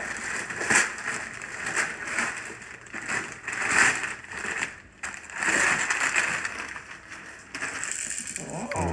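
Wrapping paper rustling, crumpling and tearing in repeated bursts as presents are unwrapped.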